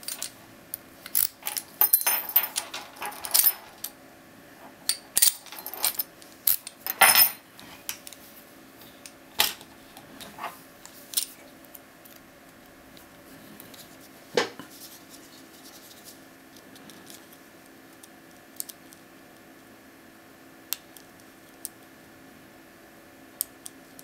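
A metal key and padlock handled by hand: a busy run of clinks and rattles over the first seven or eight seconds. After that come a few single metallic clicks as a tension wrench and pick are handled and set into the padlock's keyway, thinning to faint ticks near the end.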